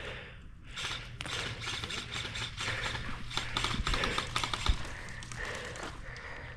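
Quick, irregular mechanical clicking and rattling, busiest in the middle, with one sharper knock near the end of it, over a low steady hum.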